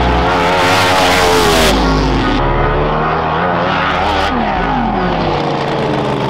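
Drag boat engines running loud, their pitch wavering and sliding down and up as they rev.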